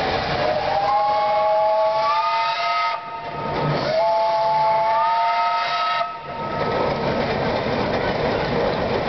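Steam traction engine whistle blowing two long blasts of about three seconds each, with a short break between. Each blast is a chord of several tones that slides up in pitch as it opens. After the second blast a steady hiss carries on.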